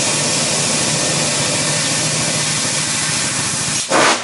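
An air compressor's 16-horsepower gasoline engine runs under a steady loud hiss of air. About four seconds in, the compressed-air pumpkin cannon fires with a sudden, very loud blast of air from the barrel.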